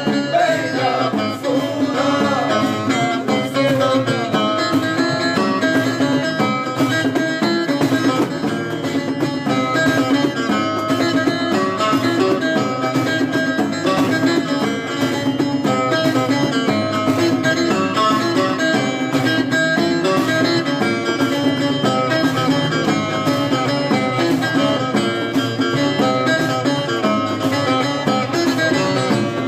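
Music played on plucked string instruments: a busy, continuous melody over a steady low held note.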